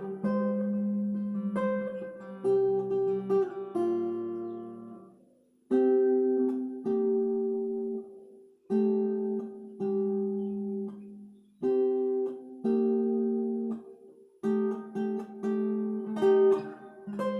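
Epiphone Lil Tex travel acoustic guitar played in chords, each struck and left to ring, about one a second. One chord dies away almost to silence about five seconds in before the playing picks up again.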